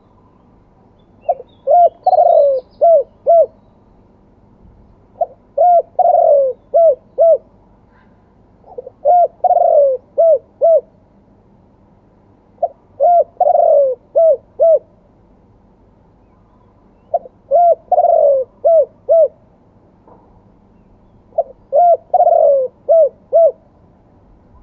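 Spotted dove cooing in its repeated phrase: a short note or two, a longer, louder coo, then a few quick short notes. It coos this six times, about every four seconds. The cooing style is the one Thai keepers call 'two kuk'.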